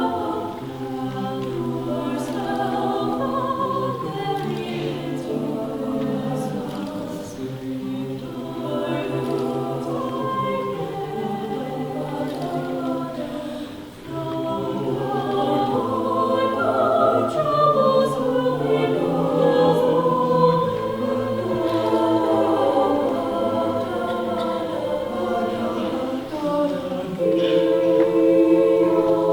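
High school madrigal choir singing in several-part harmony with held chords. The singing drops away briefly about halfway through, then comes back fuller.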